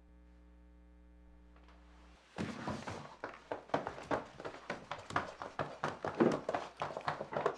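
Near silence with a faint hum, then from about two seconds in a rapid, irregular run of knocks and thuds, several blows a second, going on to the end.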